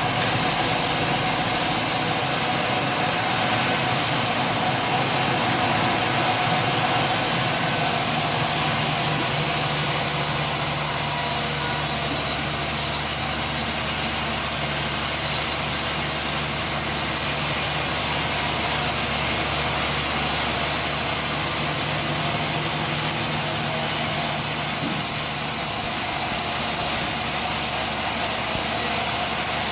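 Sawmill machinery running steadily, an engine-like drone with a lot of high hiss; a low steady hum settles in about eight seconds in.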